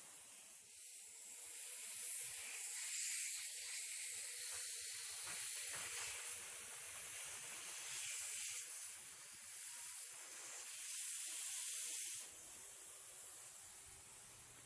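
Compressed air hissing steadily through a pressure washer's pump and hose, blowing the water out to winterize it; the hiss eases off about twelve seconds in.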